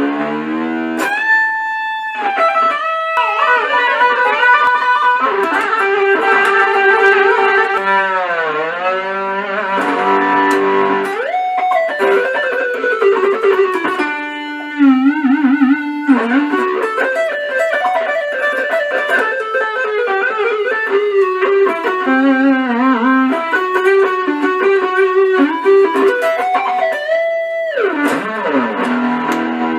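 Electric guitar, an Epiphone Explorer fitted with a Floyd Rose FRX tremolo, played through an amp: notes and chords with repeated whammy-bar dips, the pitch swooping down and back up.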